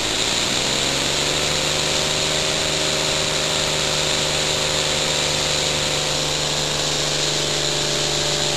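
Homemade elbow steam engine running on compressed air from a hand-held blow gun: a steady hiss of air with the engine's running tone, which rises in pitch over the first second or two as it speeds up and then holds steady.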